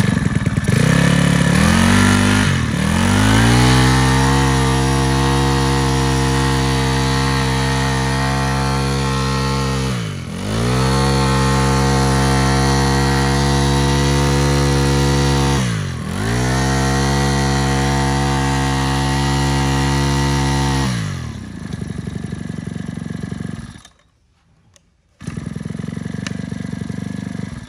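Makita four-stroke brush cutter starting up and being run at high revs. The throttle is let off briefly twice, each time a quick dip in pitch before it picks up again. Then it drops back and is switched off about three-quarters of the way in, with a short burst of rougher engine noise near the end.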